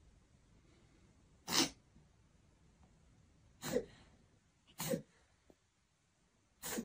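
Four short, sharp sneeze-like bursts, a second or two apart, the first the loudest.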